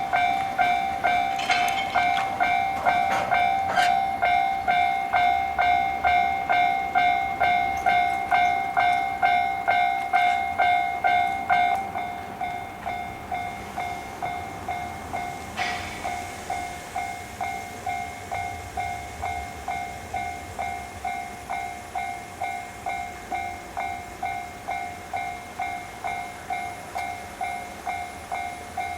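Japanese railway level-crossing warning bell ringing steadily, about two strokes a second. About twelve seconds in it becomes quieter and loses its higher ring.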